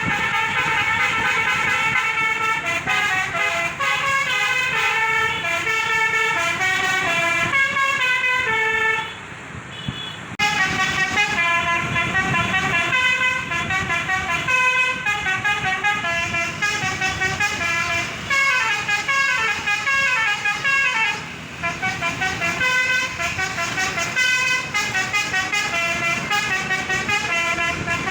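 Basuri telolet multi-tone bus horn playing a rapid melody, its notes stepping up and down in pitch, with a brief break about nine seconds in before it plays on.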